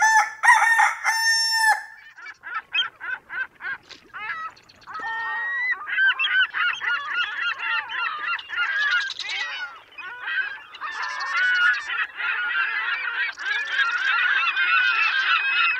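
A flock of birds calling: a few loud drawn-out calls at the start, then quick short calls that build into a dense chorus of many overlapping calls.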